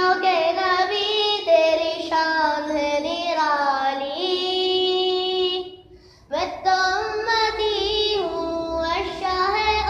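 A single high voice singing a naat, an Urdu Islamic devotional song, in long drawn-out melodic lines. One note is held steady for a couple of seconds, then there is a brief pause about six seconds in before the singing resumes.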